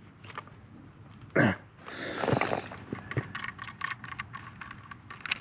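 Plastic water-pipe fittings being handled and pushed together: a short sound falling in pitch, a rustling scrape, then a run of light plastic clicks and taps.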